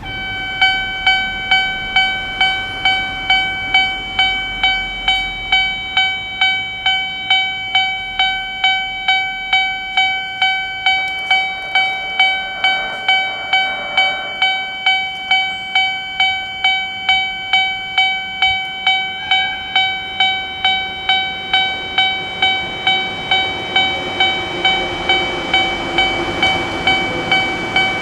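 Japanese railway level-crossing alarm starting to ring: an electronic bell tone struck steadily a little under twice a second. Near the end a low rumble of an approaching train grows beneath it.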